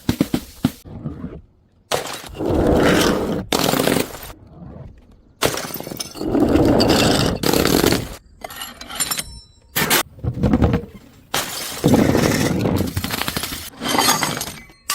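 Glass bottles smashing one after another, about five times: each a sudden crash followed by a second or two of shattering noise, with smaller clinks between.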